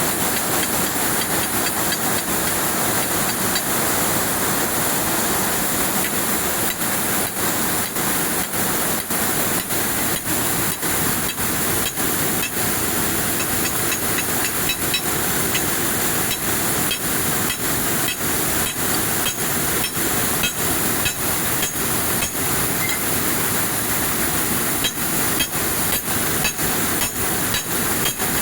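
Air-jet weaving loom running at speed: a loud, steady machine din of fast clatter and hiss.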